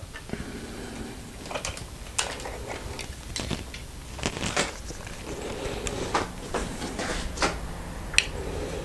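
Scattered light clicks and knocks, about a dozen spread unevenly over several seconds, from things being handled and moved.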